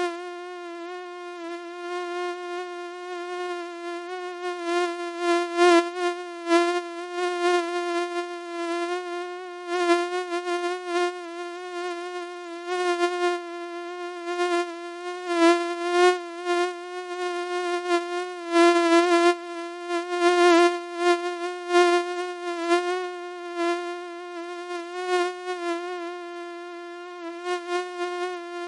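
Mosquito buzzing: a steady, high-pitched whine with many overtones, wavering slightly in pitch, its loudness swelling and fading again and again.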